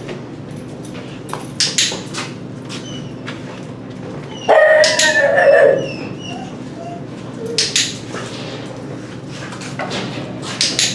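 Dogs in shelter kennels, one giving a loud, drawn-out pitched cry about four and a half seconds in that lasts over a second. Scattered sharp clicks and knocks run through the rest.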